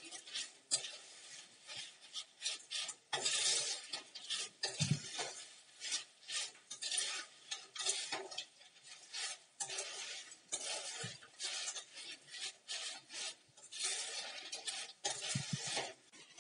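Spatula scraping and tossing spice-coated raw banana strips around a stainless steel pan, in irregular strokes several times a second.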